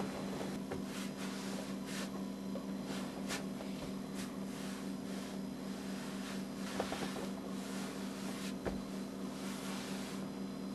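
Steady low hum with faint scattered rustles and soft clicks.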